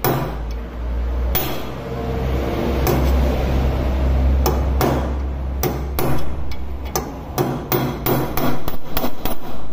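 Hammer blows driving a broken intake valve guide out of a motorcycle's aluminium cylinder head held in a vise. The strikes come a second or more apart at first, then quicken to about three a second in the second half, over a steady low rumble that fades out about six seconds in.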